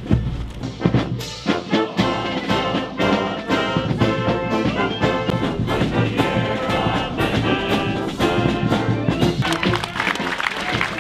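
Brass band playing, trumpets and trombones over a steady beat.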